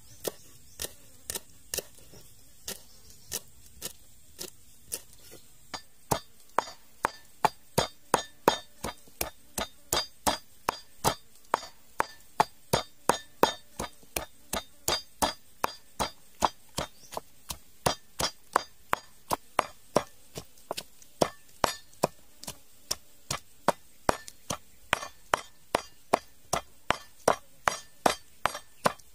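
Wooden pestle pounding garlic and sliced herbs in a wooden mortar: sharp knocks in a steady rhythm of about two a second. For the first few seconds the knocks are sparser and uneven, a knife chopping herbs on a wooden board.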